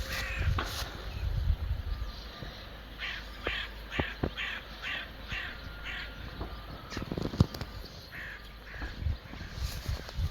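A crow cawing: a quick run of about seven caws, about two a second, with a few more scattered calls. There is a single sharp thump a little after the run.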